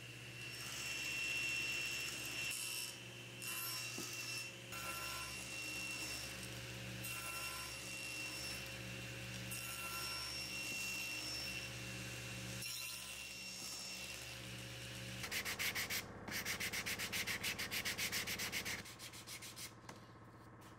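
Table saw running with a steady hum as a board clamped to a crosscut sled is passed over the blade to cut a tenon. About fifteen seconds in, a louder, rapidly pulsing rasp of blade cutting wood lasts a few seconds, then stops.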